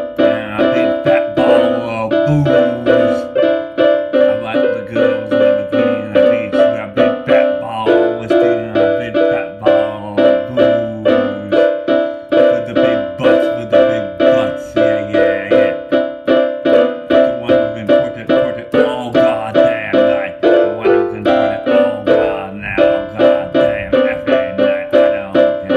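Instrumental backing music led by a keyboard playing piano-like notes in a steady, repeating rhythm of about two to three notes a second.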